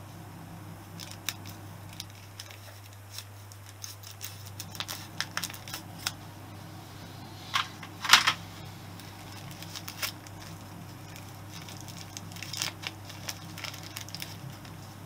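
Scattered small clicks and clinks of tools and engine parts being handled during motorcycle engine disassembly, loudest in a quick cluster about eight seconds in, over a steady low hum.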